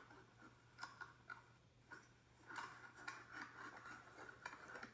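Near silence: a low steady hum with a few faint, scattered taps, fingers tapping on a phone's touchscreen.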